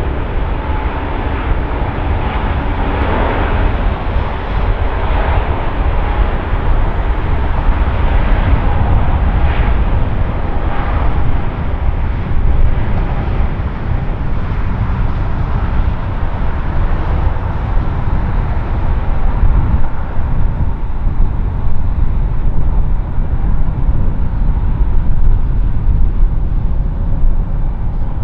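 Airbus A380's four jet engines rumbling steadily as the airliner rolls along the runway. The noise is fullest in the first half and eases off in the upper range later, leaving a deep rumble.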